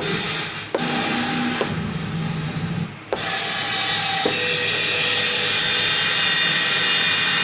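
Rockstar Pad electronic drum pad being struck four times, each hit setting off a held pitched tone, over a steady noisy wash that grows fuller after the third hit, with a low hum underneath in the first seconds.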